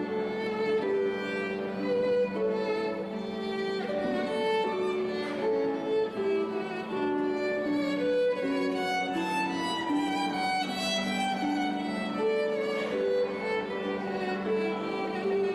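Violin music: a slow melody of held notes over a steady low sustained note.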